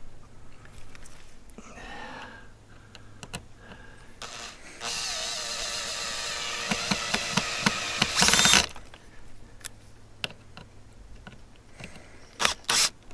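Cordless drill driving wood screws into a wooden post: one steady motor whine of about four seconds that is loudest just before it stops, then two short bursts of the drill near the end.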